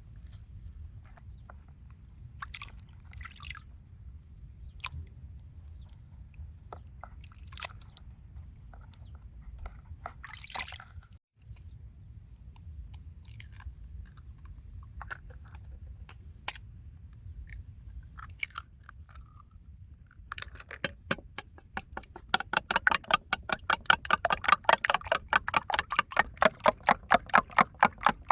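Food preparation: scattered clicks and taps of utensils, then from about twenty seconds in a fast, even run of sharp strokes, about four to five a second, such as a knife chopping on a board or a fork beating in a bowl.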